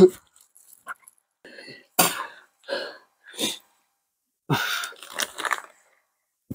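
A man coughing and gagging in short, harsh bursts, several times over a few seconds, in reaction to a mouthful of surströmming, the fermented Baltic herring.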